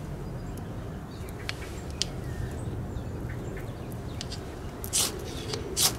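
A ferro rod scraped twice near the end, two short, sharp rasping strikes throwing sparks onto a tinder bundle of wood chips and birch bark. Before that, only a steady outdoor background hiss and a few small clicks.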